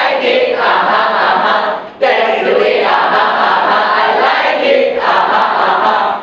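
A large group of people chanting or shouting a cheer together in unison, in phrases of about two to four seconds with a short break about two seconds in.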